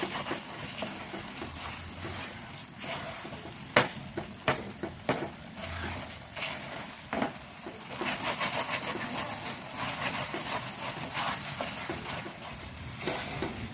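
Spatula stirring and scraping thick khoa (mava) round a nonstick pan as it roasts, with several sharp taps of the spatula against the pan a few seconds in.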